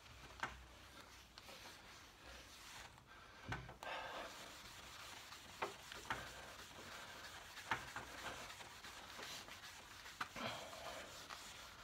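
Waxed pine tabletop being buffed by hand: faint, steady rubbing that grows fuller about four seconds in, with a few light knocks and clicks between strokes.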